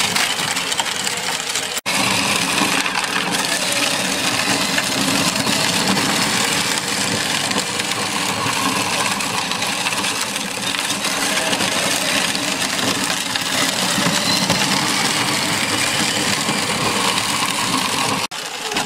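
Electric ride-on toy UTV driving over a concrete driveway: its hard plastic wheels crunch and rattle on the gritty pavement over the whirr of its small drive motor. The sound drops out for an instant about two seconds in.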